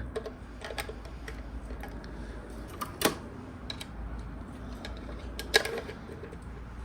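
Scattered clicks and light scraping of a flathead screwdriver working the spring-loaded J-hook latches of an HEI distributor cap, pushing them down and turning them into place; two louder clicks about three seconds in and again past five seconds.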